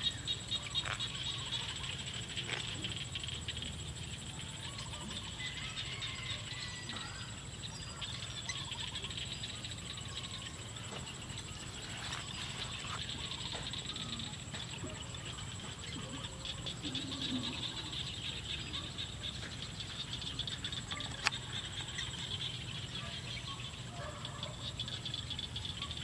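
Evening rice-field animal chorus: a steady, rapid rattling chorus with a constant thin high tone above it, a few faint chirps, and one sharp click about 21 seconds in.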